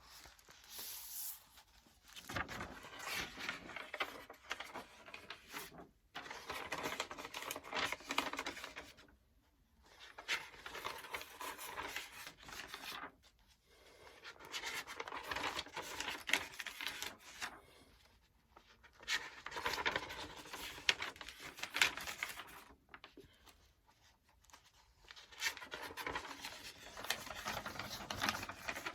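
Paper book pages flipped and rustled, in about six bursts of a few seconds each with short pauses between.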